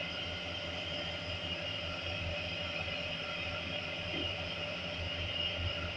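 A steady mechanical hum and whir, holding several steady tones over a low drone, unchanging throughout.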